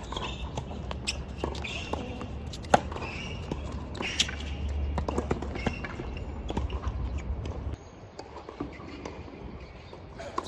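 Tennis ball play on a court: scattered sharp knocks of the ball on racket and court, the loudest about a quarter of the way in, with faint shoe scuffs. A steady low rumble sits underneath and drops away about three-quarters of the way through.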